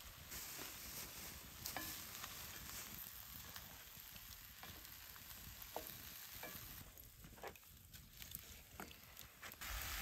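Lamb, onion and green bell pepper sizzling quietly in a cast iron skillet while a wooden spatula stirs and scrapes through them, with scattered sharp ticks. About a second before the end the sizzle turns louder.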